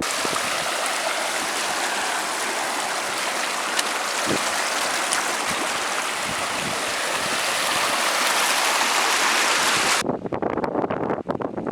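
Steady rushing of a mountain stream, a dense hiss that cuts off abruptly about ten seconds in. In the last second or two come irregular crunching footsteps on the track.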